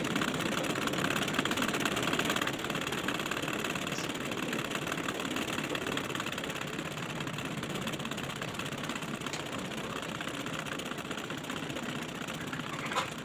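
Domestic sewing machine running fast and steady, stitching free-motion embroidery with its feed dogs removed, the needle going up and down in a rapid even patter. It eases off slightly about two and a half seconds in, and a couple of short clicks come near the end.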